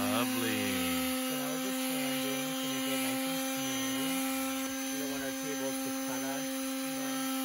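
Electric palm sander running with a steady hum while it sands a plywood tabletop smooth, with a voice talking over it.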